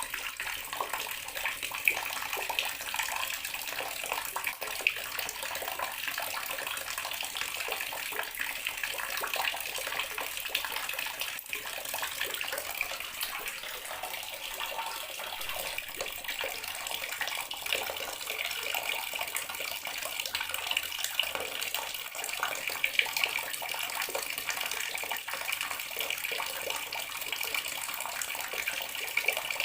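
Bathroom water tap running steadily, the stream splashing and trickling into a basin.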